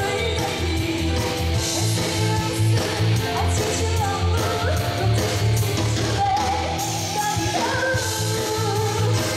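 A live stage band plays an upbeat pop dance song with a steady bass beat, and singers on microphones sing over it.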